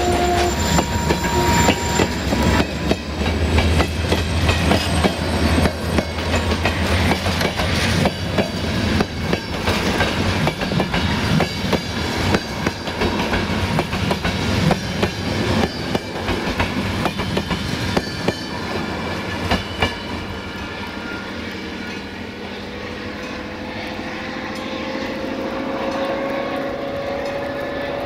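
Passenger coaches rolling past, with a low rumble and quick clicking of wheels over rail joints that fades as the train draws away. A faint steady tone slowly rises in pitch near the end.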